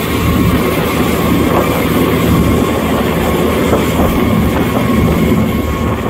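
Motor boat running at speed across choppy sea: a steady engine drone mixed with the rush of water along the hull.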